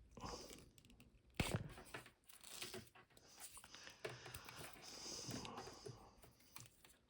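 Faint rustling, crinkling and light clicks of stripped copper wire and its slit insulation being handled and pulled apart.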